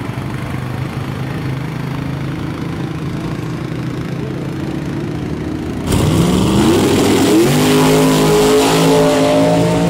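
An engine idling steadily. About six seconds in, the sound jumps abruptly louder: the small-tire Dodge Dakota drag truck's engine revs up and holds at high revs, with a loud rushing noise over it.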